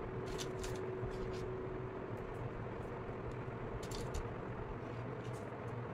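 Light clicks and taps of wooden ice cream sticks being set down on paper and pressed into hot glue, coming in a few short clusters over a steady low background hum.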